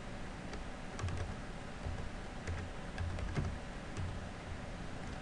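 Typing on a computer keyboard: scattered, irregular keystroke clicks.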